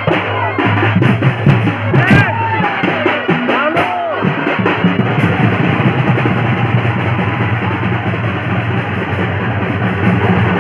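Loud live Sambalpuri folk music led by a barrel drum beating hard. In the first few seconds sharp drum strokes and sliding high notes stand out, then the playing settles into a dense, steady din.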